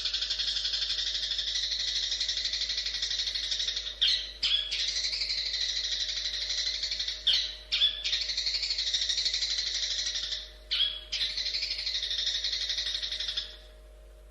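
Long-tailed shrike (cendet) singing a long, fast, chattering song, broken by short, loud, sharp calls about four, seven and eleven seconds in. The song stops shortly before the end.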